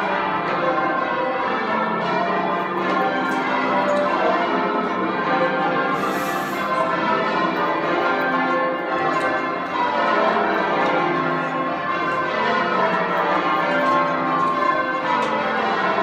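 A ring of twelve church bells, with a tenor of about 1381 kg in C, ringing rounds: each bell strikes in turn from treble down to tenor, in an evenly paced, continuous sequence with an old-fashioned tone. They are heard from the ringing chamber below the bells.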